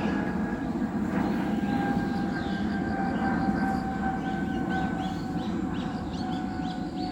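Low rumble of a passing train with a whine that slowly falls in pitch. Small birds chirp repeatedly over it in the second half.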